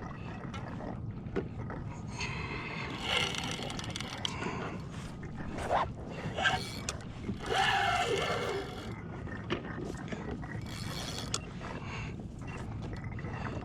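Spinning or conventional fishing reel being worked against a hooked fish: a mechanical, ratchet-like whirring in several spells, over a steady low background rush.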